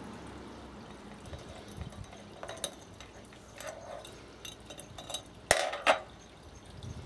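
A metal hand can opener clinking against tin cans and the bench as a cat paws it off a tin: scattered light clicks, with two sharper clanks close together about five and a half seconds in.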